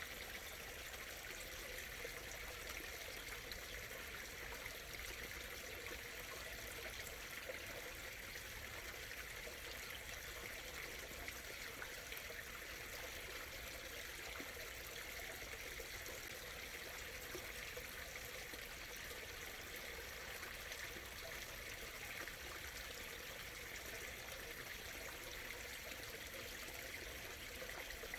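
Small stream murmuring and trickling steadily, even and unchanging.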